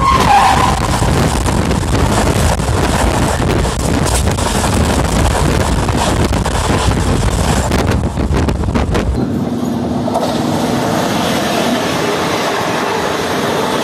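Trains passing at speed on the next track, heard from an open window of a moving train. An oncoming electric locomotive's horn sounds at the start, dropping in pitch as it passes, followed by the loud rush and rattle of its coaches. About nine seconds in, a second passing train takes over with a thinner rumble of wheels and coaches and a steady low hum.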